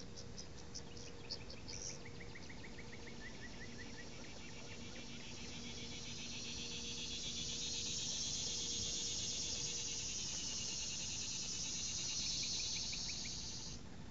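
Insect trilling: a high, rapidly pulsing buzz that swells in from about five seconds in, holds loud, and cuts off abruptly just before the end. A fainter series of short chirps and clicks comes in the first few seconds.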